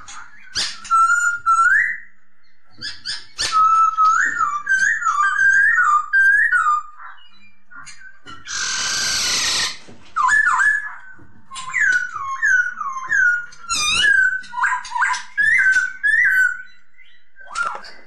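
Black-throated laughingthrush singing: quick phrases of loud whistled notes that rise and fall, with a harsh rasping burst about eight and a half seconds in.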